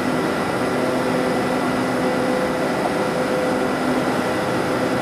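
Steady hum of diesel train engines at a station, with a few constant tones held throughout and no change in loudness.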